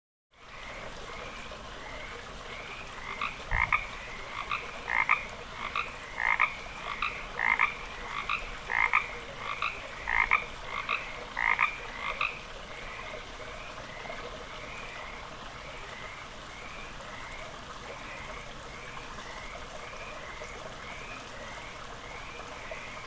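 Frogs calling: one nearby frog gives short, repeated calls about once or twice a second for roughly ten seconds, over fainter repeated calls from other frogs that carry on throughout.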